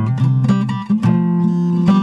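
Background music: acoustic guitar playing plucked and strummed notes.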